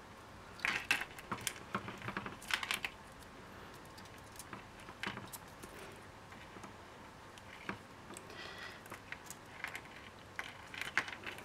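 Scattered light clicks and short scrapes of jewellery pliers and fine wire as a wrapped wire loop is wound and finished, the busiest handling about one and two and a half seconds in.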